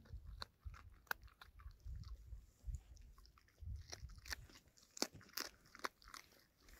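A dog chewing raw pike scraps, with irregular sharp crunches between softer chewing.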